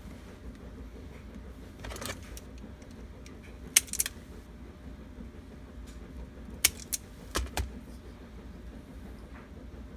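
Metal hand tools clicking and snapping while wiring is prepared for splicing: a sharp click about four seconds in, then a quick run of clicks and snips a little past the middle, over a steady low hum.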